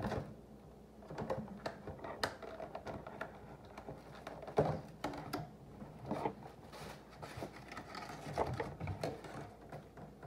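Hands handling things, most likely a packaged salad being opened: scattered irregular clicks, taps and rustles, a few sharper ones standing out.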